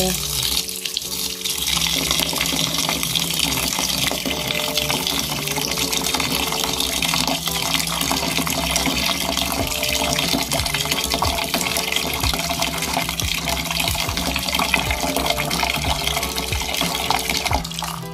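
Tap water pouring steadily into a metal pot of glutinous (sticky) rice and filling it, to wash the rice.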